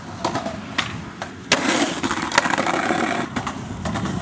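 Skateboard on a concrete ledge: a few light clacks, then about a second and a half in a sharp hit and a loud grinding scrape lasting nearly two seconds, followed by a few knocks.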